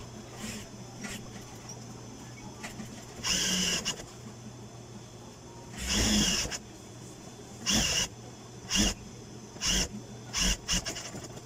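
Industrial sewing machine stitching binding tape along a mattress edge in short bursts, about seven of them, the longest near the middle. A steady motor hum continues between the bursts.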